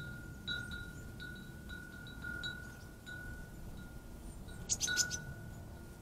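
A wind chime ringing one note over and over, each strike blending into the next. A quick cluster of sharp, high clicks stands out about five seconds in.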